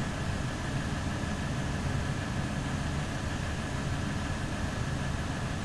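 Steady low rumble of a 2016 Ram 1500 EcoDiesel idling, heard inside the cab, with a faint steady high whine above it.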